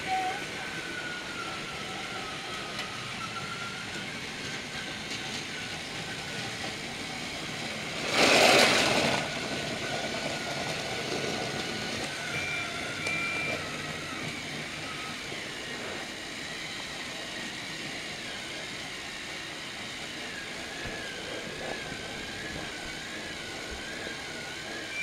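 Battery-powered Trackmaster toy train motor whirring steadily, its pitch wavering a little. About eight seconds in, a loud rush of noise lasts about a second, and a little after halfway there are two short high beeps.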